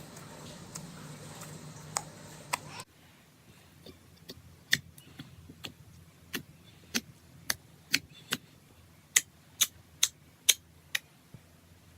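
Slime being pressed and worked by hand, giving sharp, irregular clicking pops as air pockets burst. A steady low hum behind the first few pops stops suddenly about three seconds in.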